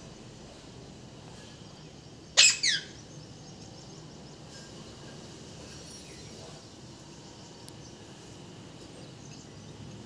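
Pet parrot gives a short, loud screech: two quick calls falling steeply in pitch, about two and a half seconds in.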